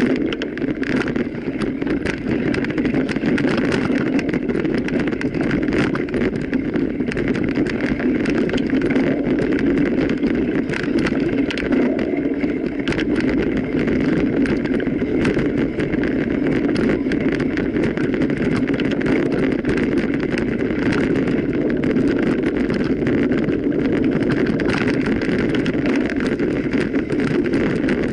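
Mountain bike ridden over rough ground: a steady rumble of tyres and wind with a constant clatter of small rattles and knocks.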